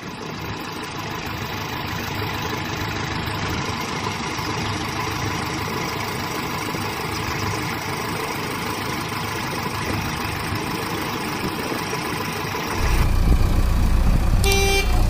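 Steady engine idling sound. About thirteen seconds in, it turns louder and deeper, and a few steady tones join it near the end.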